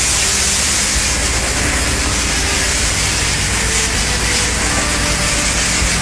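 Shotcrete spraying: a loud, steady hiss of compressed air and concrete blasting from the spray nozzle, over a low, steady hum from the machine.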